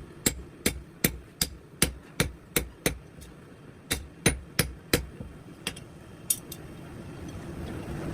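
Hand hammer striking iron in quick regular blows, about three a second, in two runs separated by a short pause, then a few scattered strikes. A steady low rumble rises near the end.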